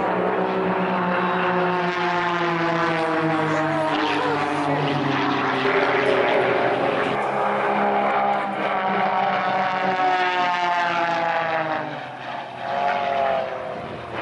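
Propeller-driven aerobatic plane flying a display overhead. Its engine and propeller note rises and falls in pitch as it manoeuvres, and dips briefly near the end.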